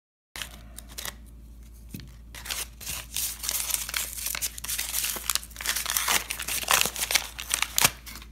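Crinkling and rustling of a kraft-paper mailer and a small plastic zip bag being handled and opened, with many sharp crackles that grow busier from about three seconds in. It starts abruptly after a moment of dead silence.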